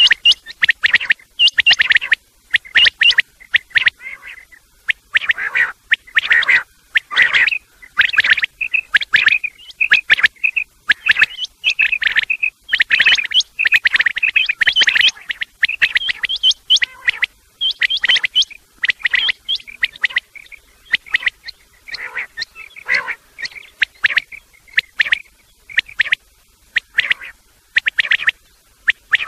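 Common quail calling loudly, male and female calls mixed: rapid, repeated high chirping notes in quick clusters with short pauses. It is a quail-call recording played to lure quail in for hunting.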